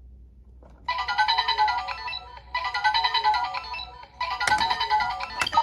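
Kamen Rider Den-O DX transformation belt's speaker playing a short electronic standby jingle that repeats three times in a loop, with a couple of sharp clicks near the end.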